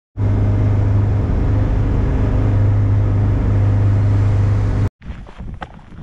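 Boat engine running steadily at speed, with the wash of the hull driving through choppy water, heard from inside the cabin. It cuts off suddenly about five seconds in, leaving faint wind and a few knocks.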